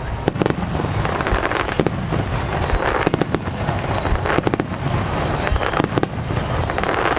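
Starmine fireworks barrage: shells bursting in quick succession, several sharp bangs a second over a continuous low rumble.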